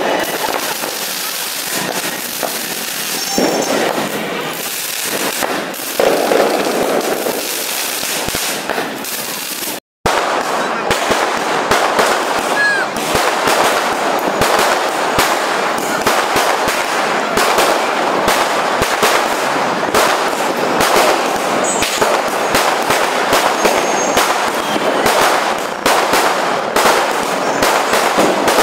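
Fireworks and firecrackers crackling and banging in a dense, near-continuous barrage of sharp cracks. The sound drops out for a moment about ten seconds in at a cut, then comes back thicker.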